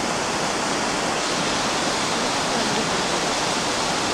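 Steady rushing of flowing water, a mountain river running fast and unbroken.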